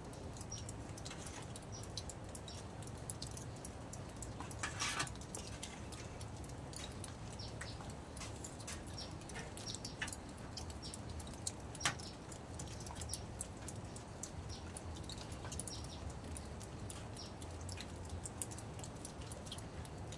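Quiet mealtime sounds of people eating soup from a metal tray: scattered lip smacks, slurps and small clicks, the loudest about five seconds in and near twelve seconds, over a low steady hum with faint short high chirps.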